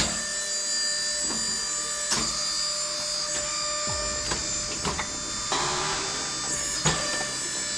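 A motor-driven wood-splitting machine running with a steady hum and whine, broken by several sharp knocks, about one every one to two seconds, as wood is split.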